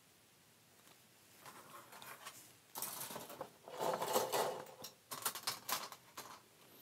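Grey plastic model-kit sprues being handled and swapped on a cutting mat: uneven rustling with a few light knocks of plastic, loudest about four seconds in.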